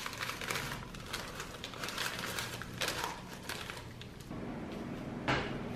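The paper liner of a cardboard bakery box crinkling and rustling in a string of short crackles as a hand lifts out a chocolate-covered donut. A single sharp tap about five seconds in.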